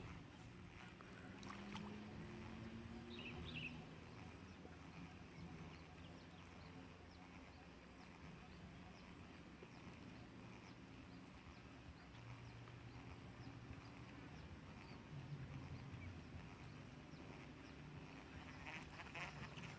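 Near silence: faint outdoor ambience, with a thin steady high pulsing tone and a few faint low hums.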